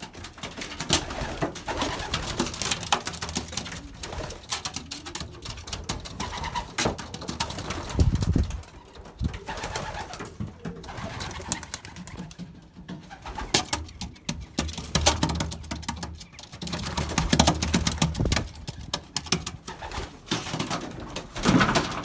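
Racing pigeons cooing in a wooden loft, with scattered sharp clicks and knocks and a couple of low rumbling thumps, one about eight seconds in and another stretch around seventeen seconds.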